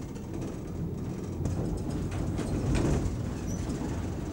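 Funicular cliff railway car running on its track: a steady low rumble with a few light clicks.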